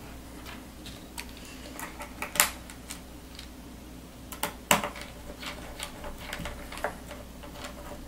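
Small scattered clicks and taps of tiny screws and a screwdriver against a laptop's metal hard-drive carrier as its mounting screws are fitted, with two sharper clicks about two and a half and almost five seconds in.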